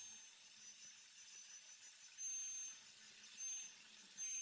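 DeWalt angle grinder running at speed with a steady high whine, its disc grinding a steel bracket plate; the grinding hiss swells and eases a few times as the disc bites.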